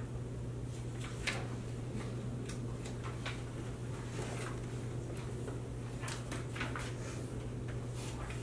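Quiet meeting-room ambience: a steady low hum under scattered small clicks and rustles of people handling papers and furniture.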